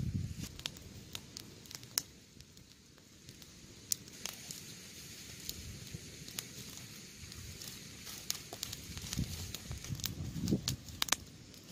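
Small open wood fire crackling with scattered sharp pops over a faint hiss, and a few dull knocks as sticks are pushed into it.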